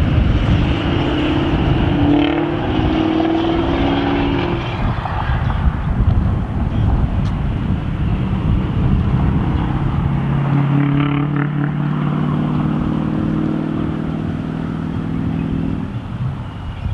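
Ford 6.0 Power Stroke turbo-diesel V8 truck running under way during a roll-off and flyby, a loud low engine rumble. Its engine note comes through as a steady drone from about ten seconds in and drops away shortly before the end.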